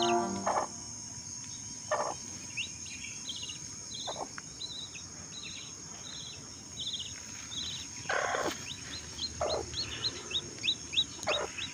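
Birds chirping in series of short, high notes, several a second at times, over a steady high insect drone. A few brief, louder rustles or knocks come through, the strongest about eight seconds in.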